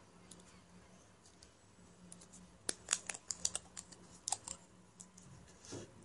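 A quick run of small clicks and taps from a metal lipstick case handled in the fingers, bunched together about halfway through, then a soft bump near the end.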